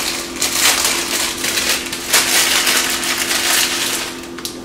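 Crinkly crunching of a packet of dry instant ramen noodles being handled and crushed, an irregular crackle throughout. A steady low hum runs underneath.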